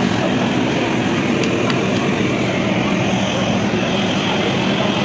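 An engine running loudly and steadily.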